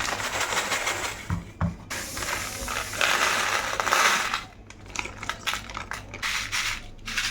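Packaging and small hard items being handled: irregular crinkling with small clicks and clinks, in stretches that start and stop.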